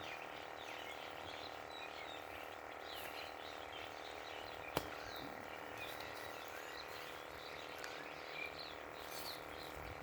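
A steady frog chorus with small chirping calls above it, and one sharp click about five seconds in.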